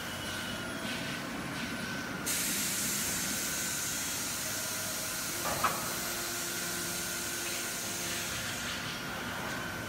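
Melamine lamination line machinery running with a steady hum and a thin high whine; about two seconds in a loud hiss of air starts suddenly and runs for several seconds, easing off near the end, with one short sharp sound midway.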